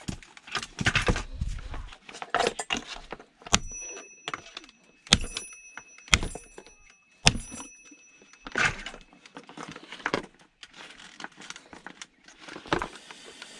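Metal scrap parts being handled, knocked and clinked together while an item is taken apart, with about four sharp metallic strikes in the middle that ring briefly.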